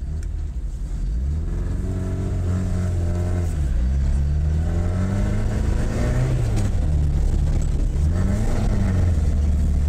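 A Lada's four-cylinder engine, fed by four motorcycle carburetors, pulling away under load. The revs climb and sag several times without building cleanly: the engine doesn't want to pull, which the driver puts down to the carburetors needing tuning.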